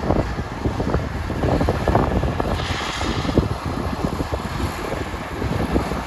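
Rice harvesting machinery running: a dense, steady rattle over a low rumble, with a short hiss about halfway through.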